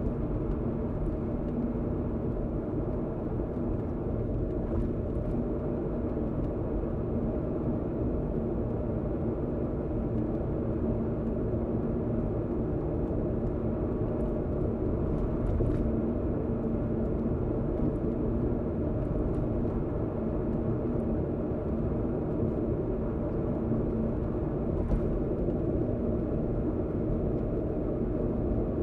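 Car cruising on an expressway, heard from inside the cabin: a steady low rumble of tyre and engine noise with a constant hum underneath.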